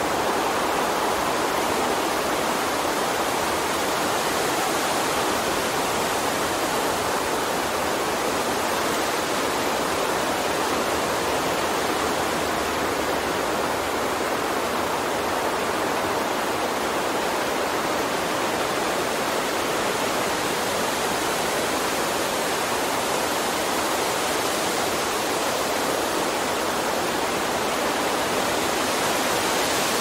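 Steady, even rushing noise like running water, with no breaks or changes.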